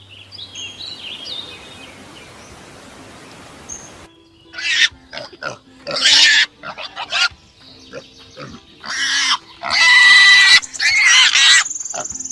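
Loud, shrill animal calls, several in quick succession, starting about four seconds in after a faint, noisy stretch.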